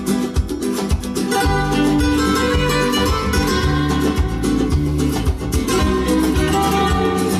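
Recorded music with guitar playing over Vandersteen 2Ci loudspeakers, driven by a McIntosh MC2500 power amplifier and a Cary SLP 98L preamplifier. It has a full bass line of changing notes and crisp note attacks.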